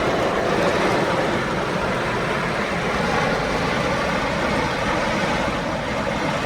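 Steady, loud rushing noise of a heavy downpour, with vehicle traffic mixed in.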